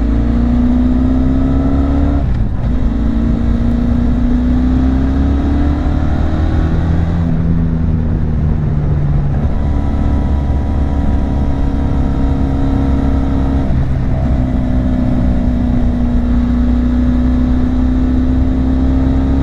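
Benelli TRK 502's 500 cc parallel-twin engine and exhaust pulling the bike along. The revs climb slowly in each gear, with upshifts about 2 seconds in and about 14 seconds in. The revs dip lower for a couple of seconds around the middle.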